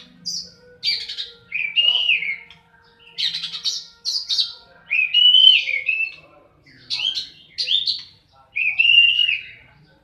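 Oriental magpie-robin (kacer) singing in its aggressive fighting-mode song. Harsh, scratchy notes alternate with short clear whistled phrases that rise and fall, in bursts every second or so.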